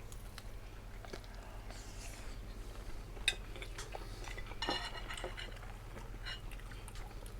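Cutlery clinking against plates and bowls during a meal, scattered light clicks with one sharper clink about three seconds in, over a steady low hum.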